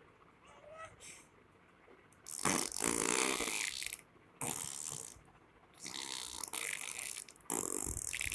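A young child making breathy, raspy mouth noises in four separate bursts of a second or two each, not words.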